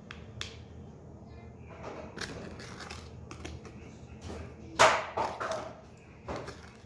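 Stir stick scraping and tapping against a bowl to work loose slime stuck to the bottom, in scattered short clicks and scrapes. A louder, sharp sound comes about five seconds in, followed by two shorter ones.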